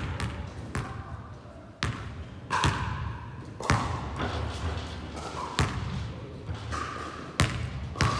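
Basketball bouncing on a sports hall floor: about seven sharp thuds at uneven gaps, each echoing in the large hall.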